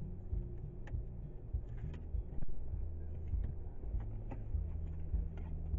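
Car driving: steady low engine and road drone, with a few faint clicks.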